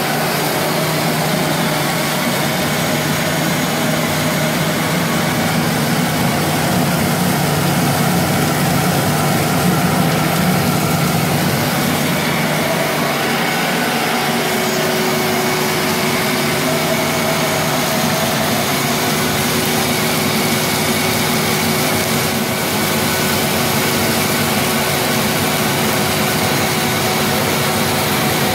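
Shop vac running steadily, pulling air through a homemade cocoa bean winnower's hoses, PVC pipes and cyclone separator. This is the airflow that carries the light husk away from the heavier nibs. A steady hum joins in about halfway through.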